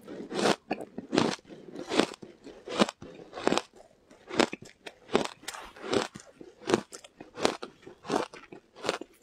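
Shaved ice coated in matcha powder being bitten and chewed, a crisp crunch about every three-quarters of a second.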